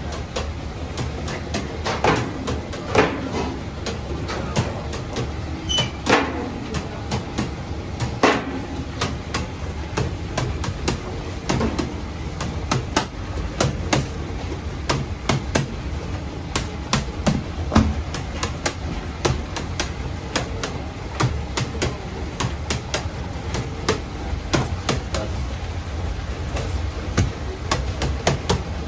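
Bakery work clatter: sharp knocks and clicks of metal tools and trays on steel work surfaces, a few ringing briefly in the first seconds, then coming several a second from about ten seconds in, over a steady low hum.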